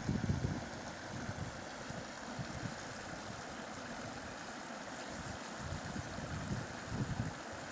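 Wind buffeting the microphone in irregular low gusts, strongest near the start and again about seven seconds in, over a steady rushing hiss.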